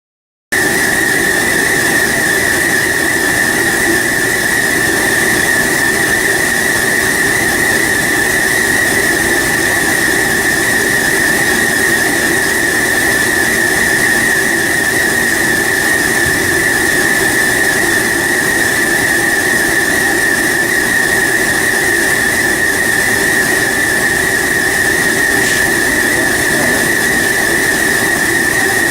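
Loud, steady machine noise with a constant high whine, starting abruptly about half a second in.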